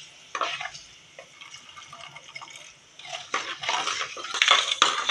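Steel ladle stirring fenugreek seeds frying in sesame oil in a clay pot, scraping against the pot over the sizzle of the hot oil. One short stir just after the start, then a busier, louder run of stirring strokes from a little past halfway to the end.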